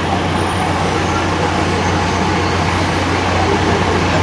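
Machinery running steadily nearby: a constant low hum under a loud, even mechanical drone.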